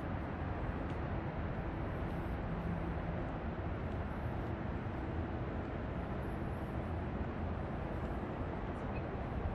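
Steady outdoor city ambience: a low, even rumble of traffic and street noise with no distinct events.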